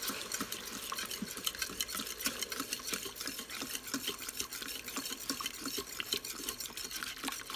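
Béchamel being stirred in a stainless steel pot, just after milk has gone into the butter-and-flour roux. A utensil scrapes and taps quickly and unevenly against the metal sides and bottom of the pot.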